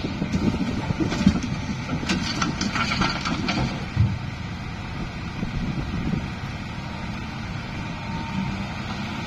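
Kubota M8540 tractor's diesel engine running steadily. A quick run of clicks and knocks comes about two to three seconds in, and a single thump follows about four seconds in.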